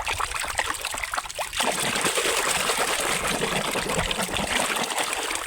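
Water splashing and trickling as a muddy toy animal is washed by hand in water, with small knocks at first, then a steadier run of water from about a second and a half in.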